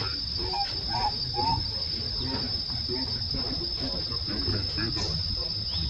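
Steady high-pitched drone of insects calling, with a low rumble underneath and three short faint chirps about a second in.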